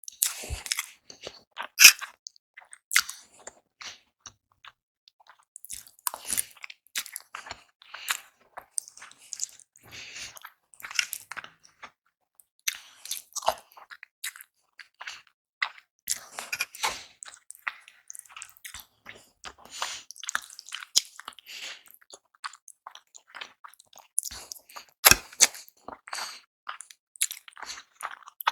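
Close-miked eating: wet chewing and smacking of spicy Korean instant noodles and boiled eggs, with slurps and bites coming irregularly as many short sharp clicks.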